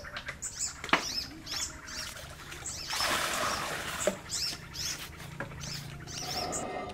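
A handheld vegetable peeler scraping along a raw carrot in repeated strokes, with short high squeaky chirps throughout and a sharp click about a second in.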